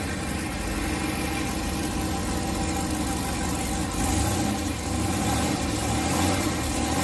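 Turbocharged 408 cubic-inch LS V8 idling steadily, a little louder from about four seconds in.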